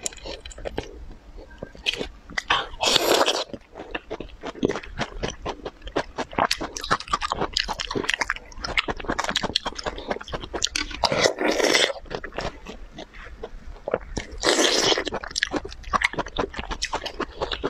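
Close-miked biting and chewing of juicy, dark-skinned thawed frozen pears: a dense run of quick wet clicks and smacks, broken by three louder, longer wet sounds.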